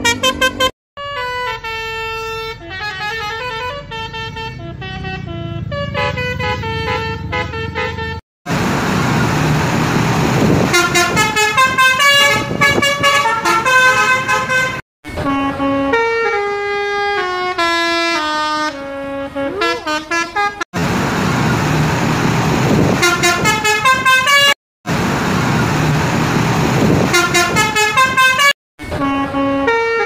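Indonesian bus "telolet basuri" musical air horns playing short melodies note by note over engine and street noise. The horns come from several buses in turn, with abrupt cuts between them.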